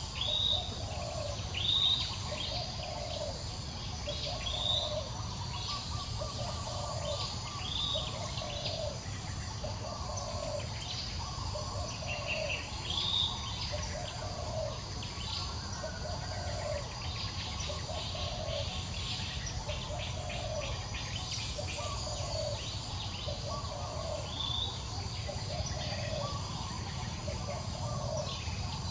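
Outdoor forest ambience: birds chirping, with short high rising calls every few seconds, over a low call note repeated evenly about once a second and a steady insect hum.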